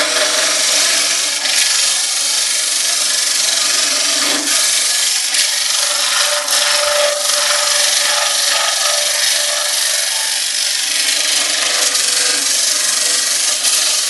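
Scraper cutter of an arm-mounted hollowing rig cutting inside a wooden hollow form spinning on a lathe: a loud, continuous scraping hiss of the tool on the wood over the steady hum of the lathe, as the inside is hollowed out.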